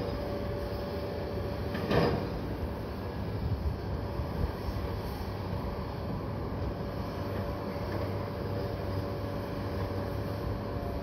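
Hoe chuckers (excavator-based log loaders) running their diesel engines steadily under load, with a steady high hum over the engine noise. A loud clunk comes about two seconds in and a few lighter knocks follow as the machines handle logs.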